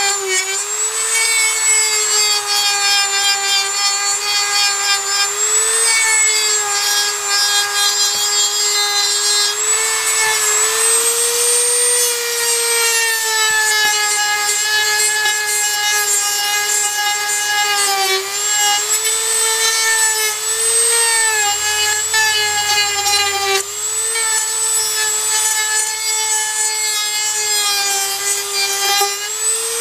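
High-speed hand-held power tool cutting, trimming material down so a double-DIN stereo will fit the dash. A steady high whine whose pitch sags briefly and recovers several times as the tool is pressed into the work.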